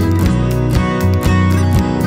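Background music: a strummed acoustic guitar in a steady, quick rhythm.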